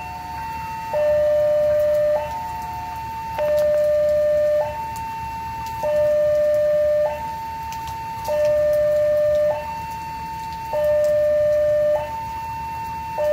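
Railway level-crossing warning siren sounding a steady two-tone high-low alternation, each tone held about a second, signalling an approaching train.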